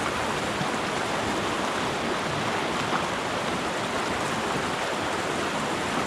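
Small mountain stream rushing steadily, an even water noise with no breaks.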